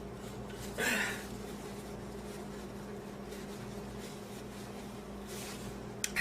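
A woman's single short cough about a second in, then a lull with only a steady low hum. The coughing is her body trying to clear food she inhaled into her airway.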